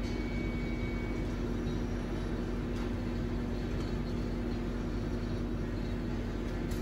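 Steady machine hum from a collaborative robot cell with a cobot arm and a balancer unit running, with two low steady tones and a faint high whine in the first second or two.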